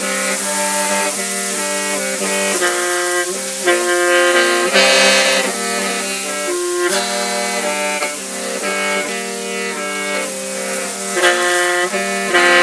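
Hmong qeej (lusheng), a bamboo free-reed mouth organ, playing a melody in several tones at once over a steady held drone.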